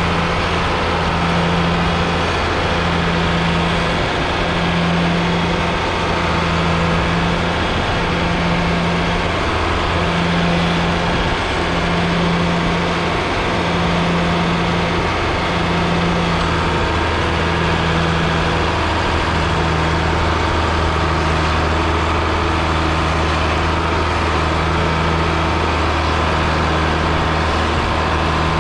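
John Deere 4040's six-cylinder diesel engine idling steadily, a low even hum with a slow regular pulse in it.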